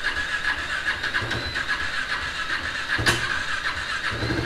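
Motorcycle engine just started after standing unused for a long time, running with a steady high whine. About three seconds in there is a click, and near the end a deeper, steady idle note sets in.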